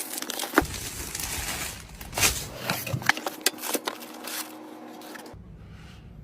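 Hands handling computer parts: irregular clicks, taps and scraping, stopping about five seconds in.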